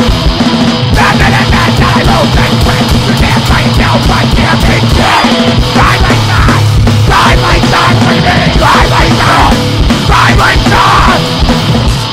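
Two-piece powerviolence band's recording: loud distorted guitar and pounding drums, with short yelled vocal bursts coming in about a second in.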